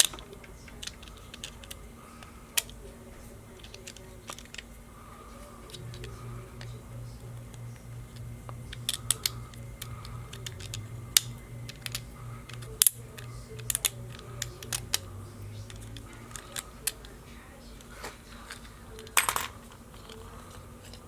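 Small plastic and metal parts of a Ronco Pocket Fisherman reel clicking and tapping as they are handled and set down during disassembly, with a short scrape near the end.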